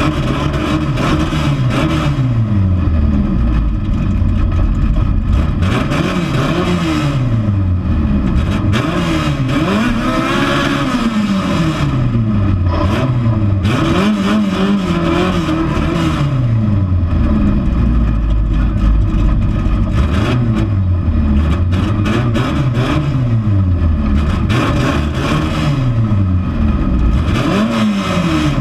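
Race car's engine with open intake trumpets, revved up and let fall back again and again, about every two seconds, heard from inside the car.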